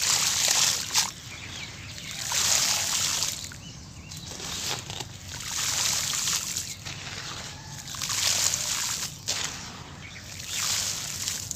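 Dry sand-cement powder crumbling and falling in handfuls onto a pool of wet cement paste: a gritty rush of grains hitting the wet surface, about six times, each lasting about a second.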